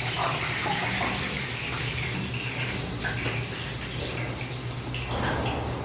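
Water running steadily from a kitchen tap, with a low steady hum underneath and a few light knocks.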